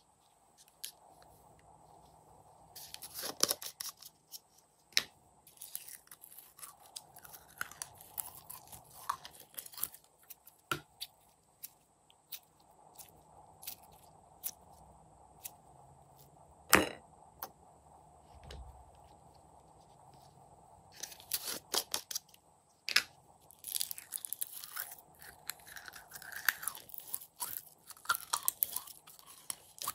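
Slime being squeezed and squished by hand out of small containers, with wet crackling and popping in bursts and now and then a sharp click, one loud click about halfway through.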